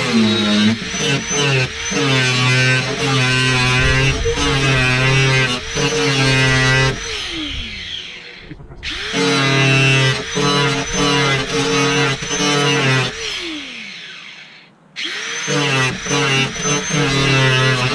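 Angle grinder cutting through bolts in three runs, its pitch wavering and dipping as the disc bites. The first two runs end with a falling whine as the disc winds down, and the tool starts up again about nine and fifteen seconds in.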